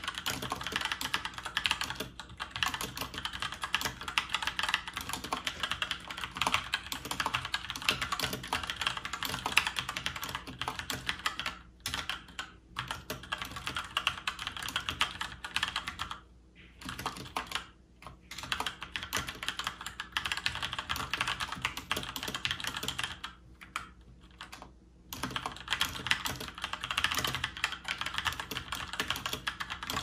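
Typing on a Keychron K2 mechanical keyboard with Gateron Brown tactile switches: a fast, continuous clatter of key presses, broken by a few short pauses.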